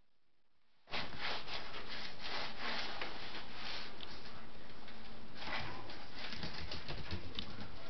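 Scottish terrier puppies scuffling and scrabbling on a vinyl floor, a dense run of small claw clicks and rubbing that starts abruptly about a second in.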